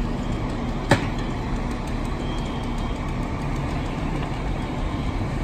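Steady engine drone of fire apparatus running at the fireground, with a faint constant hum. A single sharp knock cuts through about a second in.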